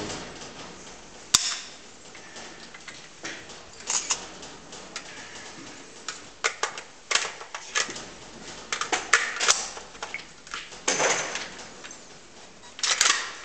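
AK-pattern rifle being handled: one sharp crack about a second and a half in, then a run of metallic clicks and clatters as the rifle is lowered and its magazine and action are worked.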